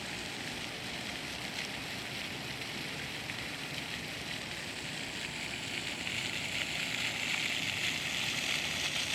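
Park water fountain splashing: a steady hiss of falling water that grows a little louder from about six seconds in.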